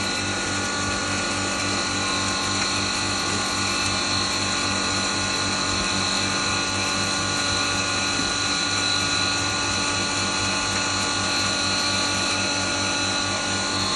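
Punjab Engineering double-chamber maize grinder running steadily, grinding corn kernels: a steady high whine over an even low hum.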